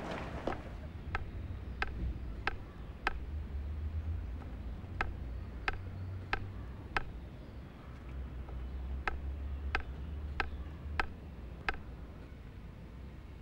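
A wooden stick tapping on hard ground: sharp taps in three runs of four or five, about one and a half taps a second, with a short pause between runs, over a low steady rumble.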